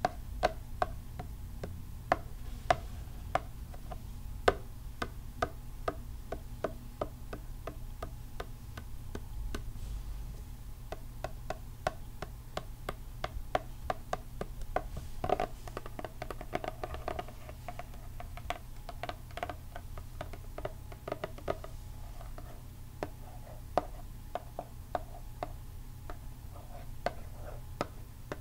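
Long fingernails tapping and drumming on a cardboard eyeshadow palette sleeve. The sound is a stream of quick, irregular clicks, sometimes in fast runs, over a steady low hum.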